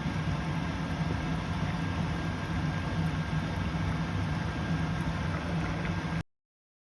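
Steady low rumble of a running vehicle with a hiss over it, cutting off suddenly about six seconds in.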